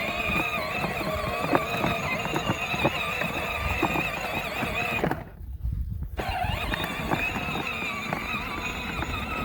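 Child's battery-powered ride-on toy tractor driving along, its electric motor giving a steady, slightly wavering whine, with many small clicks and crunches from the wheels over the ground.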